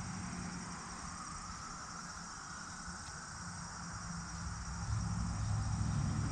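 Insects chirring in a steady, high, pulsing chorus. A low hum swells up about five seconds in.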